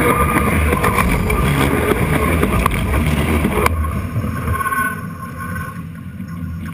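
Paris Métro train rolling directly over a camera lying between the rails: a loud, close rumble and rattle of the running gear with a steady high whine. About four seconds in, the noise cuts off sharply as the last car clears, and the train's rumble then fades as it pulls away.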